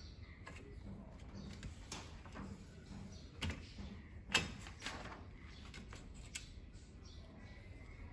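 Scattered clicks and knocks of hard plastic and metal as a screwdriver works on and hands shift a Xerox WorkCentre copier's transfer belt unit, with two sharper knocks about three and a half and four and a half seconds in.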